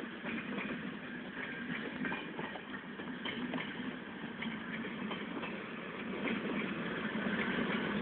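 Passenger coaches of an Indian Railways train rolling along the track, with wheels clicking and rumbling over the rails. It gets louder near the end as the coaches come close.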